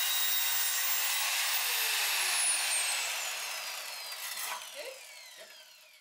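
Electric power tool motor running at full speed, then let go about a second and a half in. Its whine falls steadily in pitch as it coasts down, fading almost out near the end.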